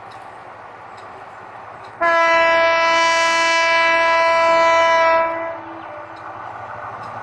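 Air horn of a Bangladesh Railway EMD GT18LA-2 meter-gauge diesel locomotive sounding one long, steady, single-note blast of about three seconds, starting about two seconds in. Underneath is the running noise of the approaching train.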